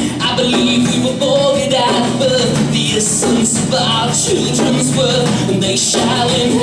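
A live song: a man singing into a microphone over steady instrumental accompaniment.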